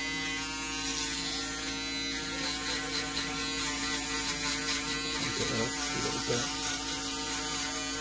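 Electric foil shaver running with a steady buzz as it is passed over the nape of the neck, taking off tiny hairs to crisp up a haircut.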